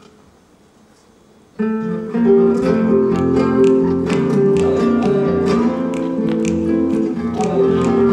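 After a quiet opening of about a second and a half, flamenco acoustic guitars come in suddenly and play alegrías, strumming and picking together, with sharp percussive clicks running through the music.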